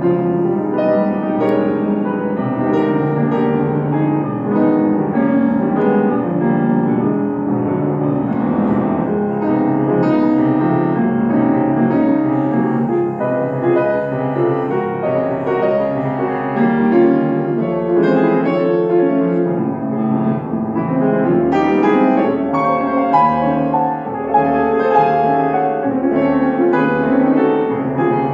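Grand piano played four hands by two pianists: a continuous piece with many notes sounding at once across the low and middle range.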